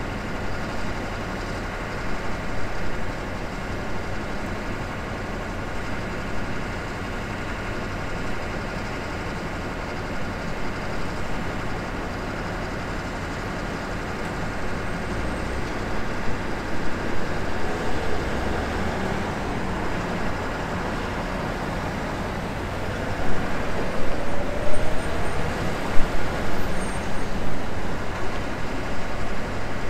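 City street traffic: a steady hum of engines and road noise. Past the middle, one vehicle's engine note rises and the traffic grows louder, with uneven swells near the end.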